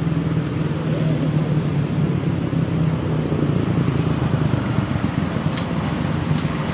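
Steady background noise: a low engine-like hum under a constant high-pitched hiss, with two faint ticks near the end.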